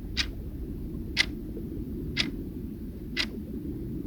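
Countdown-timer clock sound effect ticking once a second, over a steady low rumble.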